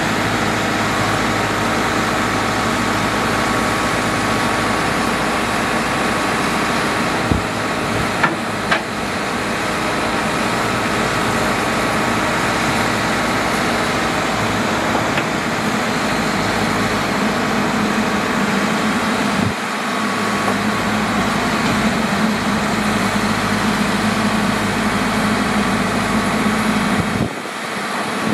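Backhoe loader's diesel engine running steadily while the backhoe arm digs and swings, with a few sharp knocks about seven to nine seconds in.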